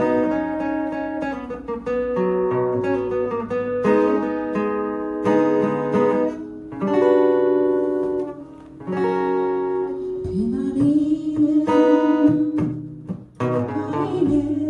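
Acoustic guitar played in a slow rock strumming pattern, with palm-muted chords and bass-note runs.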